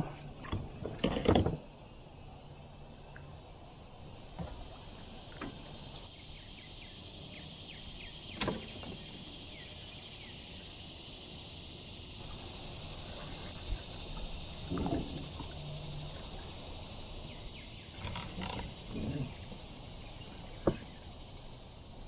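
Natural ambience of a wooded river: a steady high hiss with a few short animal calls, opened by several loud knocks in the first second and a half and scattered single knocks later on.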